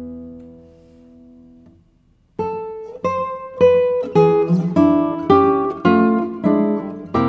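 Background music: a held chord dies away, and after a short pause, plucked notes begin about two and a half seconds in, coming a little faster as they go.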